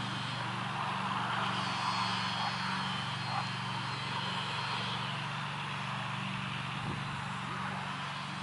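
Pond-side outdoor ambience: an even hiss of wind with a steady low drone underneath.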